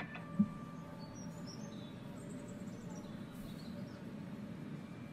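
Outdoor ambience with faint bird chirps over a low steady background hum, and a single brief thump about half a second in.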